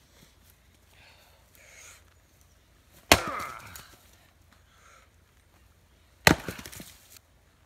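Two heavy axe blows into a firewood round on a chopping block, about three seconds apart, each followed by a short crackle of wood fibres tearing. The round is knotty and warped, and hard to split by hand.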